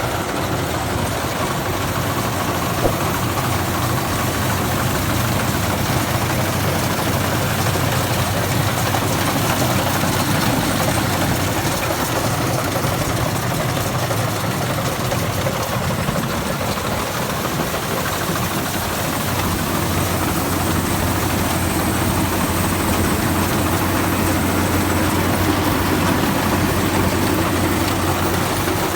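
Rice combine harvester running under load while harvesting, its engine and threshing machinery making a continuous, steady drone that swells slightly now and then.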